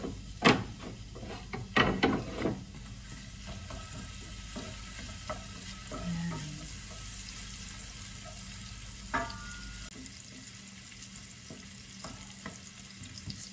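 Chopped onion frying in garlic butter in a stainless steel pan, stirred with a wooden spoon: a few sharp knocks of the spoon on the pan in the first couple of seconds, then a steady sizzle as the onion browns.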